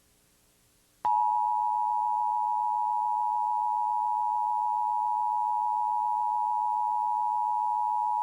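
Emergency Alert System attention signal: after about a second of silence, a steady two-tone alarm (853 and 960 Hz sounding together) comes on and holds.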